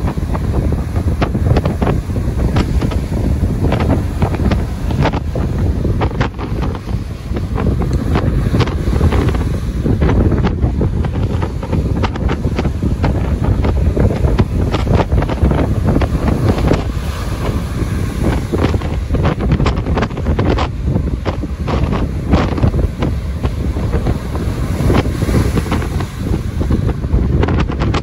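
Strong wind buffeting the microphone, crackling constantly over the low, steady rumble of large ocean waves breaking.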